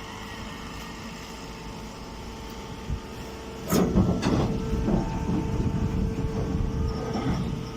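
Automatic pine straw baler running with a steady mechanical hum. About four seconds in it breaks into a louder stretch of rattling and clattering that lasts about four seconds, then drops back to the hum near the end.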